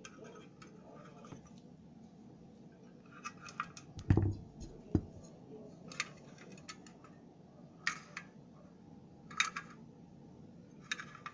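Sharp metal clicks and clacks of a folding portable camping gas stove being unfolded, its hinged metal pot-support arms swung out and snapping into place. There is a heavier thump about four seconds in.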